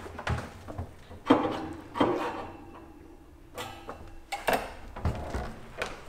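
Dometic RV fridge door being opened and its compartment handled: a series of knocks and clatters, the loudest about a second in.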